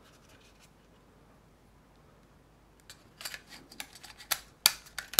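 Plastic parts of a lens-style camera and its clip-on holder attachment being handled and fitted together: after a quiet stretch, about three seconds in, there is light scraping and irregular clicking, with a few sharp clicks near the end.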